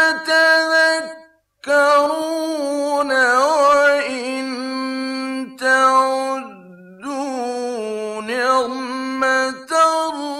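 Solo male voice reciting the Quran in a melodic chant, holding long ornamented notes that bend in pitch. There is a brief break about a second and a half in.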